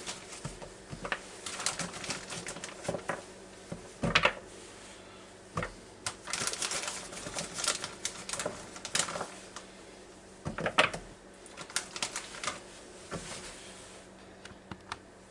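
Carrots being put one by one into a container to weigh them: irregular clicks and knocks as they land and are handled, some louder than others.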